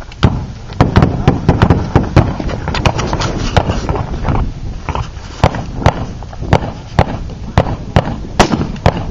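A long string of gunshots from a 3-gun competitor firing at targets, about two shots a second and unevenly spaced, each with a short echo.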